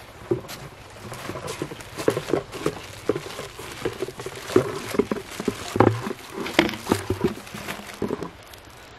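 Footsteps on grass at roughly two steps a second, with knocks and rustles from a carried plastic pipe, flexible hose and woven basket.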